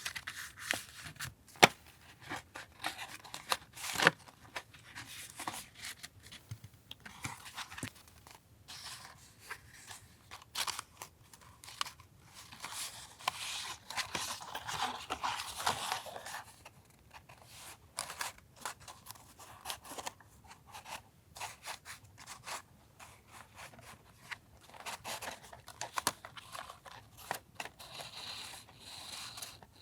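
Scissors snipping paper, among paper rustling and small clicks and taps of handling. A denser stretch of paper rustling or tearing comes a little before the middle.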